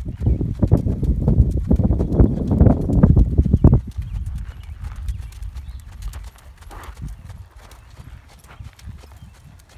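Horse's hooves trotting on a sand-and-gravel arena, a running rhythm of hoofbeats. Loud for the first four seconds, then dropping suddenly to fainter hoofbeats.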